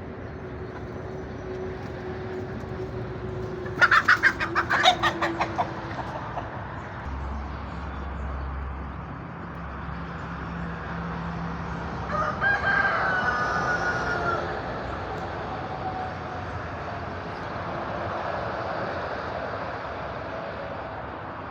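Rooster crowing once, a held pitched call about twelve seconds in, with chickens around it. A short rapid flurry of sharp sounds comes about four seconds in.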